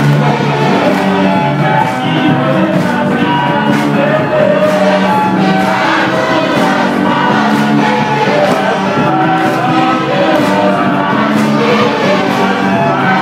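A group of voices singing a gospel song with a live church band of electric guitar, drum kit and keyboard, loud, over a steady drum beat of about two strikes a second.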